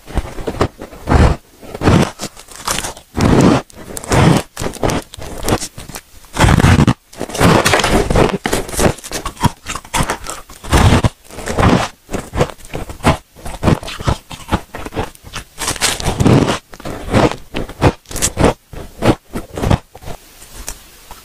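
Person biting and chewing chunks of freezer frost: a run of irregular crisp crunches, some loud, with short pauses between.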